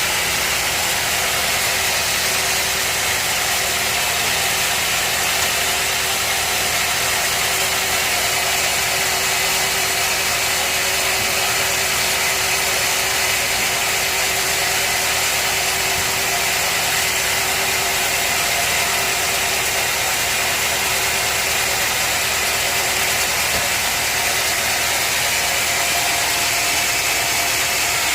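Sawmill machinery running steadily: a constant machine noise with a strong high hiss and a few steady tones, without a break.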